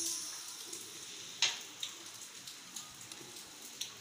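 The last steam hissing out of an aluminium pressure cooker's vent as its weight valve is lifted by hand to release the remaining pressure, fading out within about a second. After it comes a few light metal clicks from handling the weight and lid, the sharpest about a second and a half in.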